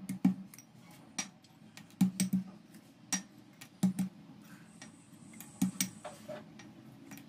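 Sharp knocks and clinks, irregular, about one a second and sometimes in quick pairs: Bourbon biscuits being broken by hand and the pieces dropped and knocked into a stainless steel mixer grinder jar.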